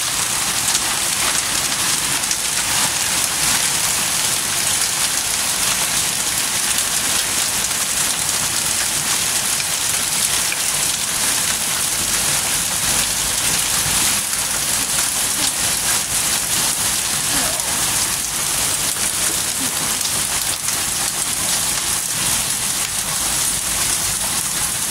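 Hailstorm: hail and heavy rain pelting paving and garden ground. A loud, steady hiss made of countless tiny impacts.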